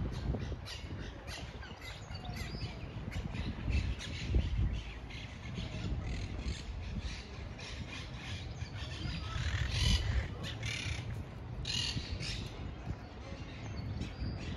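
Park birds calling and chirping, with louder clusters of calls about ten and twelve seconds in, over a low rumble of wind on the microphone.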